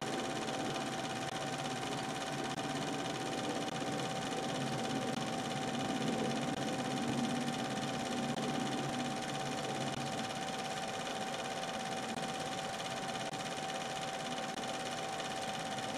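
Film projector running: a steady mechanical whirr with a constant high hum and hiss, unchanging throughout.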